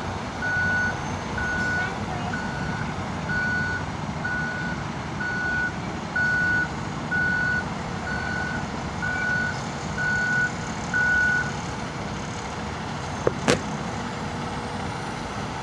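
A heavy truck's reversing alarm beeping about once a second over its steady engine, stopping about three-quarters of the way through; two short sharp knocks follow soon after.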